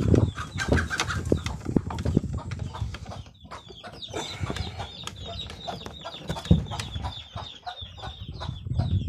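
Hens clucking and fussing in a shed, mixed with knocks and scrapes as a wooden door is handled and closed. The loudest knocks come right at the start and about six and a half seconds in.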